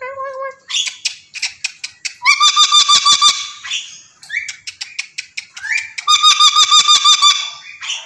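Crimson rosella calling: a short call at the start, then two rapid runs of repeated chattering notes, about ten a second, about two and six seconds in. Sharp clicks are scattered between the runs.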